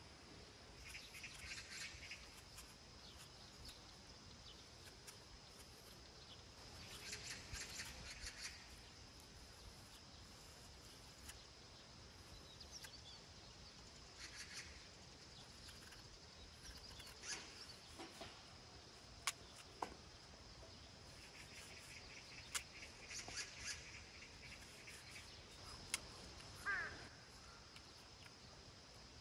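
Faint outdoor chirping in short bursts every few seconds over a steady high tone, with a few sharp clicks.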